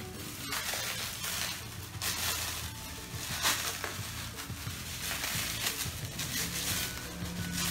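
Bubble wrap and plastic packaging crinkling and rustling in uneven bursts as a plastic bottle is unwrapped by hand.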